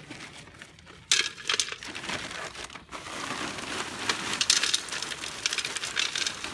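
White landscape rocks poured from a bag into a terracotta clay pot, clattering against each other and the clay. There is a sudden clatter about a second in, then a steady rattling pour from about three seconds in.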